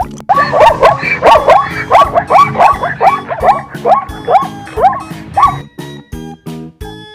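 Zebra calling: a rapid series of short, barking yelps, about two a second, that stops about five and a half seconds in, over background music.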